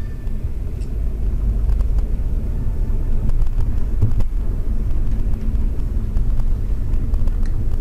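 Driving noise from a car, recorded by the built-in microphone of a cheap dash camcorder: a heavy, low road-and-wind rumble that swells over the first second, then holds steady. It is the windy, poor-quality audio this camera records on the road.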